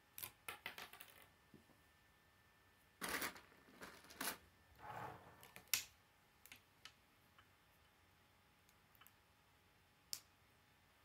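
Small plastic K'nex pieces clicking and clattering as a connector and rod are handled and fitted together: a quick run of clicks in the first second, a louder clatter about three seconds in, then scattered sharp clicks, one about ten seconds in.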